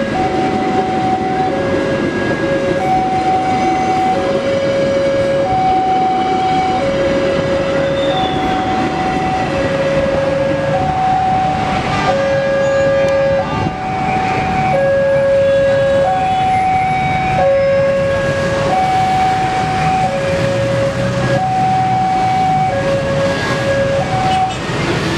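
Railway level-crossing warning alarm sounding a steady two-tone signal, alternating high and low, each tone lasting just under a second. A passenger train's carriages rumble past close by during the first several seconds.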